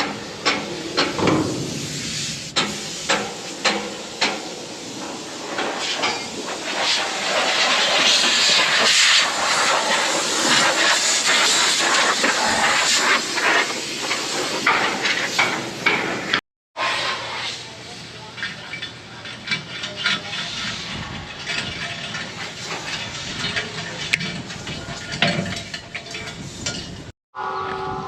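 Air blowing out a hay baler: a loud, steady hiss with many small clicks and rattles from debris. It cuts off suddenly about halfway through, and a quieter hiss with scattered clicks follows.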